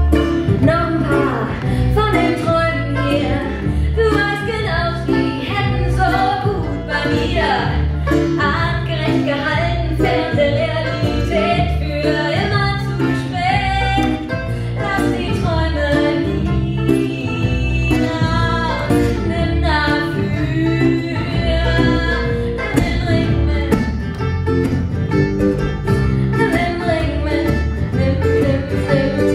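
A woman singing a song live over strummed acoustic guitar, with banjo and a plucked double bass line.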